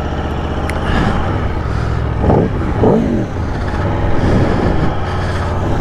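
Aprilia Tuono V4 Factory's V4 engine through its stock exhaust, running steadily and then revving up and back down several times from about two seconds in.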